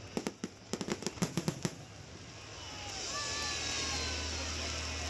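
Fireworks crackling: a quick run of sharp pops over the first second and a half, then a swelling hiss with faint falling whistle tones that cuts off suddenly at the end.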